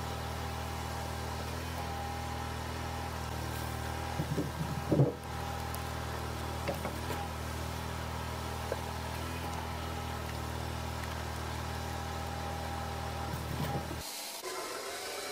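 A machine's engine running steadily, with a brief louder burst about four to five seconds in. The sound changes abruptly near the end.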